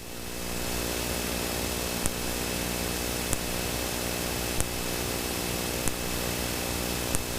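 Cockpit noise of a Cessna Citation V business jet in flight: the steady hum and whine of its twin Pratt & Whitney JT15D turbofans and the rush of air, with a short sharp click about every second and a third.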